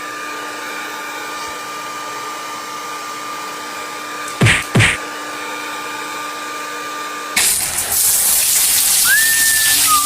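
A hair dryer runs steadily with a constant whine, broken twice by a pair of short knocks. About seven seconds in, this gives way to a louder steady hiss, with a whistled note that rises and then holds near the end.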